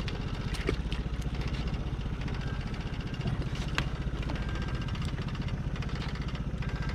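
Boat's outboard motor idling steadily with an even low pulse, with a few light clicks and taps from handling a fiberglass pole in the boat.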